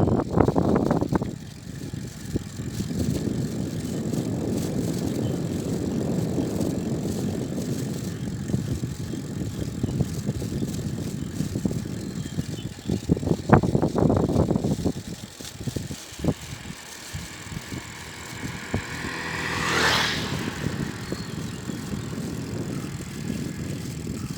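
Bicycle ride on a mountain road: a steady rushing noise of wind and riding, with louder surges at the start and again about midway. A brief rising whine peaks near the end.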